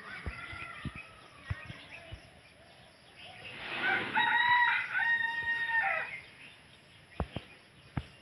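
A rooster crowing once, a loud held call of about two and a half seconds with a brief break in the middle, starting about three and a half seconds in. A few sharp knocks follow near the end.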